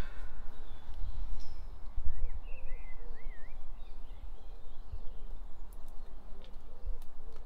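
Outdoor ambience: wind buffeting the microphone as an uneven low rumble, strongest about two seconds in. A small bird chirps faintly a few times between about two and three and a half seconds.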